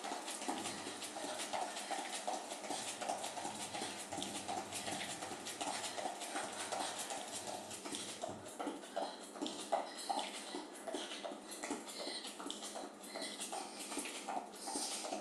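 Quick, rhythmic footfalls of running shoes on an exercise mat as a person does a shuffle cardio step.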